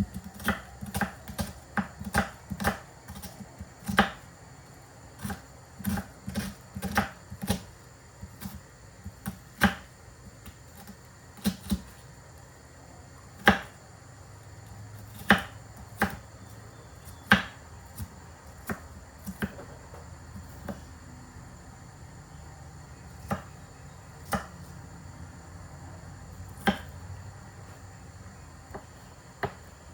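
Irregular sharp knocks and taps of kitchen prep work, utensils striking a hard work surface. They come in quick runs in the first dozen seconds, then thin out to single knocks every second or two.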